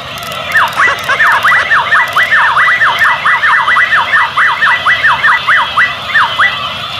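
A fast electronic warble like a yelping siren, sweeping down and up about four times a second, stops near the end. Under it runs the busy chatter of many Furby toys sounding at once.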